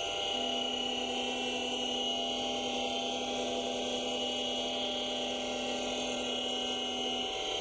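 Microlux 7x16 variable-speed mini lathe spindle running with a steady hum and whine while it turns a part under CNC control. The MultiForm CNC slide's drive adds a steady tone as it feeds the carbide tool, starting just after the start and stopping shortly before the end.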